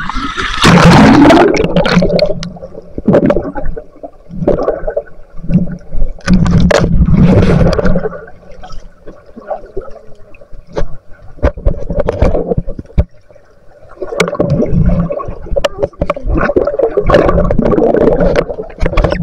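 Water gurgling and sloshing right over the microphone in irregular surges, a second or two at a time, with scattered sharp clicks between them.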